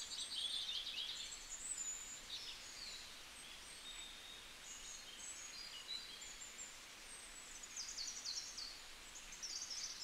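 Faint birds chirping: scattered short high chirps and quick trills over a quiet background hiss, with a cluster of them near the end.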